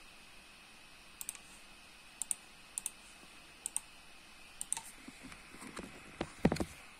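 Sharp clicks at a computer, each a quick press-and-release, spaced about a second apart. Near the end come louder knocks and thumps of the recording phone being handled.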